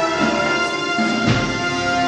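Slow band music: long held chords, with one drum stroke a little past a second in.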